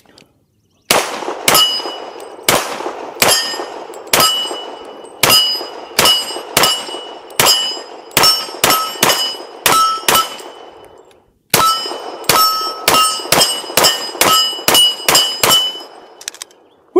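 Bul Armory Radical 2011 pistol in .40 caliber firing two fast strings of shots, with a short pause about eleven seconds in. Each shot is followed by the ring of steel plate targets being hit.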